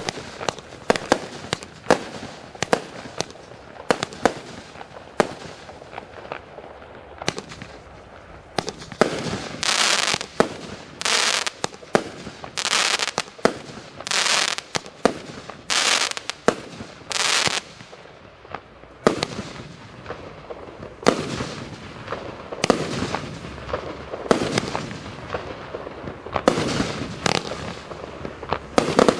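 A 238-shot compound consumer firework cake firing: a fast run of sharp shots and bursts, and from about nine seconds in a series of longer half-second bursts about every second and a half.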